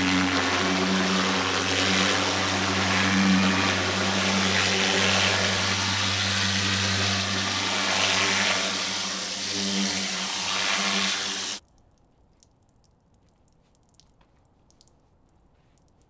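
Pressure washer running steadily, its pump humming under the hiss of the water jet as it blasts ink and stencil out of a silkscreen printing screen in a plastic utility sink. It cuts off suddenly about eleven and a half seconds in, leaving near silence with a few faint ticks.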